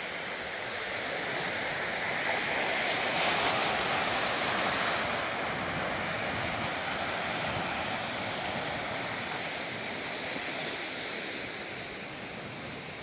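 Ocean surf breaking and washing up a beach: a steady rushing that swells a couple of seconds in and slowly eases off, with wind in the mix.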